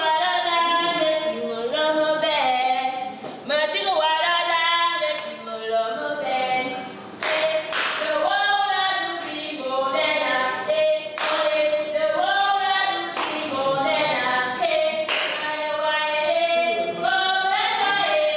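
Unaccompanied solo singing: a voice carrying a melody in long held notes, with no instruments behind it.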